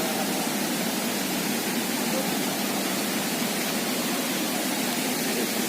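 Steady rushing of a waterfall and its rain-swollen stream: an even, unbroken hiss.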